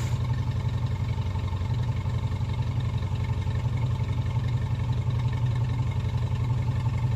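Moskvich 2140's four-cylinder petrol engine running steadily, with an even low pulsing.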